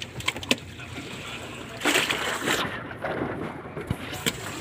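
Water sloshing around a wooden boat, with wind on the microphone. A few sharp clicks come in the first half second, a brief louder rush of noise comes about two seconds in, and there is a dull knock near the end.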